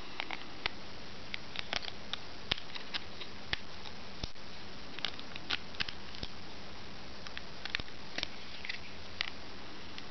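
Small neodymium magnet balls clicking together in irregular sharp clicks, about two a second, as magnetic ball assemblies are joined and pressed into shape by hand.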